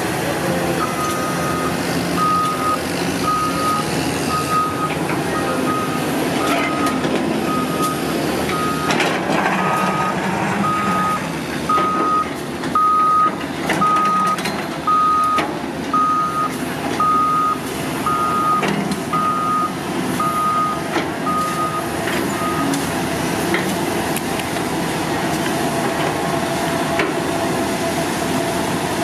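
Caterpillar 320D GC excavator's diesel engine running under load as it digs and spreads soil, with a reversing alarm beeping about once a second until roughly three-quarters of the way through, then stopping.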